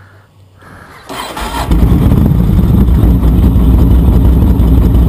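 Yamaha XV1600 Wild Star's V-twin engine being started on the electric starter. A brief crank comes about a second in, the engine catches almost at once and settles into a loud, steady idle.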